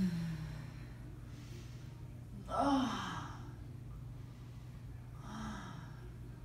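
A woman breathes out in a loud voiced sigh about two and a half seconds in, as her spine is pulled back into an assisted backbend stretch, then gives a softer breath near the end. A low steady hum lies underneath.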